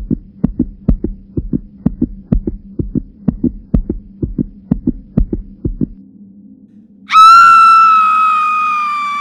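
Heartbeat sound effect, quick paired thumps at roughly two beats a second over a steady low hum, stopping about six seconds in. About a second later a loud, long, high-pitched scream starts and holds, sliding slowly down in pitch.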